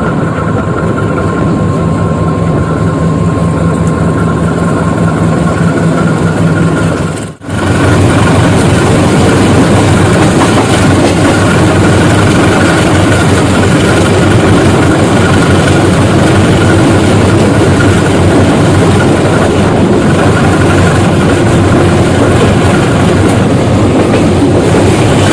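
Diesel engine of a CC 203 diesel-electric locomotive, a GE-built type, running with a steady loud roar. About seven seconds in it drops out for an instant, and afterwards it runs louder and fuller.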